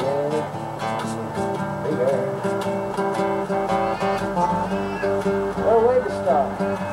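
Classical nylon-string acoustic guitar played fingerstyle, a blues instrumental passage of plucked and strummed notes.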